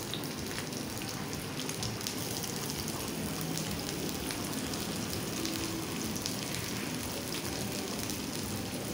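Sliced onion frying in hot oil in a cast-iron tava: a steady sizzle with fine crackles.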